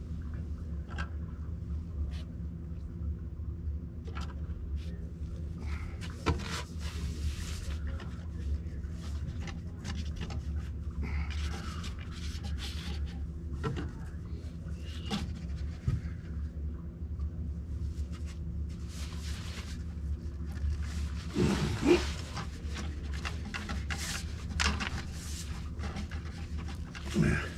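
Scattered clicks, knocks and rustling over a steady low hum, with the loudest knocks about 22 seconds in and just before the end.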